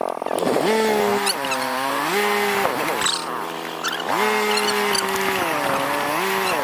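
A small engine running hard, its pitch holding and then rising and falling repeatedly as the throttle is opened and eased off.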